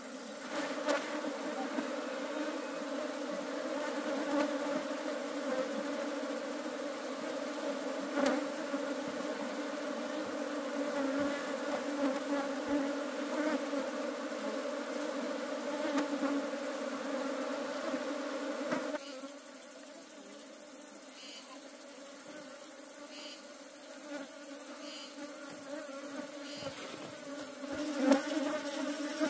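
Many honeybees buzzing together, a steady low hum. About two-thirds of the way through it turns quieter for several seconds, then swells back near the end.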